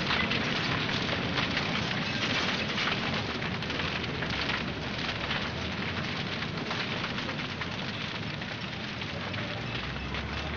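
Steady rain falling, a dense, even hiss full of fine crackles. A low hum comes in near the end.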